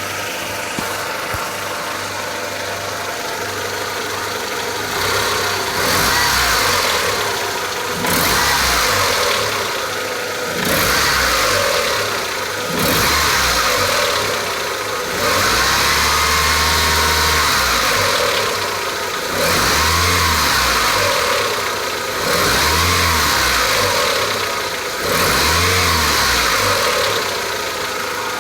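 Mitsubishi 4G63 inline-four engine idling, then blipped about eight times, each rev lasting one to three seconds before falling back to idle. The owner hears a small knock coming from low in the engine.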